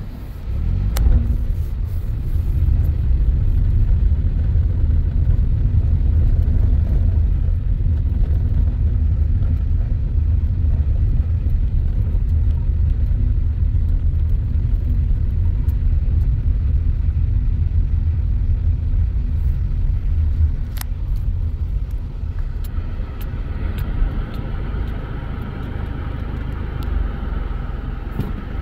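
Car driving slowly along a gravel lane, heard from inside the cabin: a steady low rumble of tyres and engine. There is a single sharp click about 21 seconds in, and a fainter higher hum comes in near the end.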